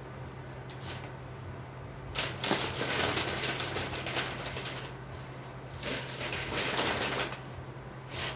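Kraft paper and plastic wrap rustling and crinkling as a chrome grille is unwrapped, in two bursts of a couple of seconds each, with a few short clicks.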